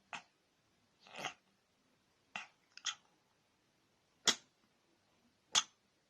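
A cat sneezing over and over: six short, sharp sneezes at uneven intervals, the two loudest in the second half.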